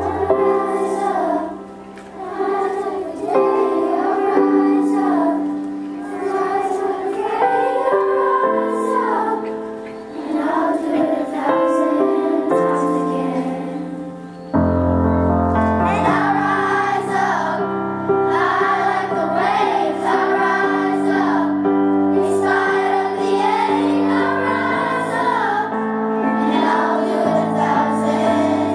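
Children's choir singing a melody in unison over sustained accompaniment chords. About halfway through, a deep bass note comes in and the music turns fuller and louder.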